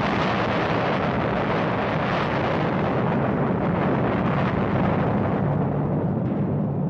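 Explosion sound effect for an atomic bomb's detonation: a sudden blast that carries on as a long, steady, deep rumble.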